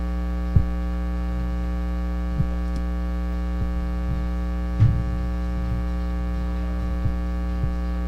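Steady electrical mains hum, a low buzz with many even overtones, on the live broadcast's audio. A few faint short knocks come through it.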